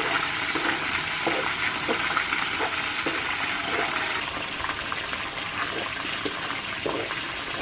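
Vegetables and sausage sizzling in hot oil in a metal wok, with a wooden spatula scraping and stirring in short repeated strokes. The highest part of the sizzle thins about four seconds in.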